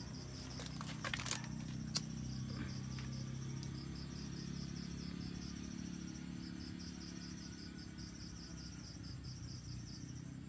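Crickets chirping in a steady, evenly pulsing rhythm, with a low steady hum underneath. A few sharp clicks sound in the first two seconds, the loudest at about two seconds in.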